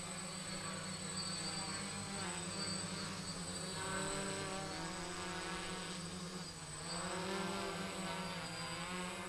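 DJI Flamewheel F450 quadcopter's four brushless motors and 10-inch propellers buzzing in flight. The pitch dips and rises again a little after six seconds in. The buzz is loudest around four seconds in and again near seven to eight.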